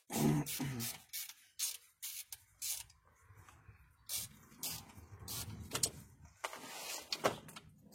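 A short grunt of effort, then a string of irregular clicks, knocks and rattles from hand tools and metal parts being handled while a bracket and clamp are fitted under a truck's dash.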